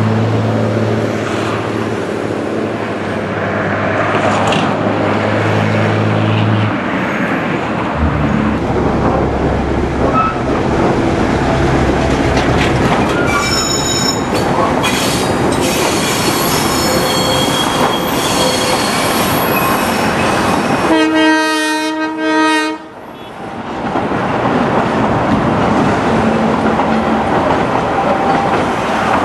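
EMD GA-8 diesel locomotive and its coaches passing close by: a low diesel drone and rumble, wheels clacking over the rail joints, and high-pitched wheel squeal. A train horn sounds one blast of about two seconds about three-quarters of the way through.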